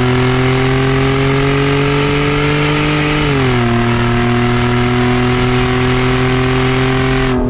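Straight-piped 2014 Toyota Sienna's V6, fitted with a Weapon-R short ram intake, running at steady raised revs. The note climbs slowly, then drops to a lower steady pitch about three seconds in.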